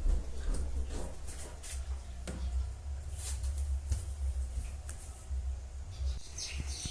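Rear of a Fiat Uno being pushed down and rocked by hand: the suspension moves with only faint knocks and rustles over a low steady rumble, and no creak from the handbrake cable now that it is sleeved in inner-tube rubber.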